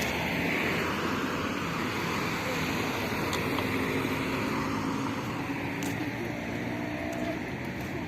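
Steady road noise of a moving vehicle, a rumble and tyre hiss, with the hiss louder for the first second or so.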